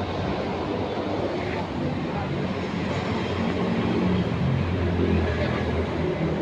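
Steady low rumble of an ALS intercity bus on the move: engine and road noise.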